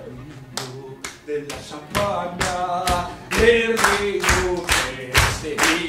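Rhythmic hand clapping, about two claps a second and growing louder, with a voice chanting or singing between the claps.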